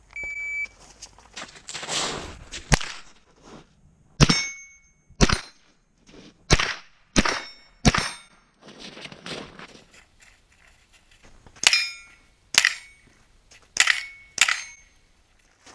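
A shot timer's start beep, then ten rifle shots fired at steel targets in two strings of five. Each shot is followed by the brief ring of a struck steel plate.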